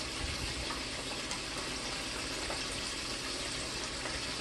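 Steady sizzling hiss of chicken frying in hot oil.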